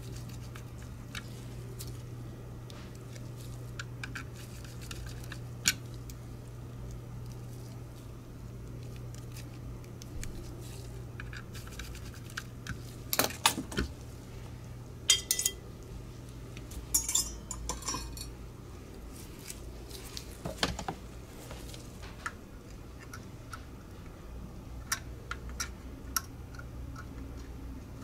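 Light clicks and taps of a Logitech G Pro Wireless mouse's plastic shell and parts being handled, screwed and fitted back together, in small clusters about halfway through and a few more near the end, over a steady low hum.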